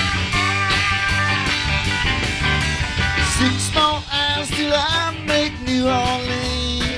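Live country-rock band playing an instrumental passage, with pedal steel guitar sliding between notes over drums, bass and electric guitars.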